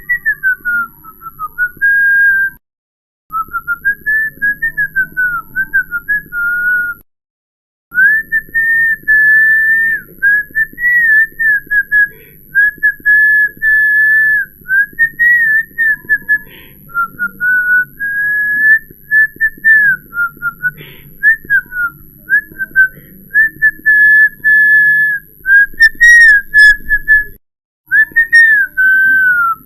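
A person whistling a wandering tune: a single clear note sliding up and down, with a few short pauses between phrases.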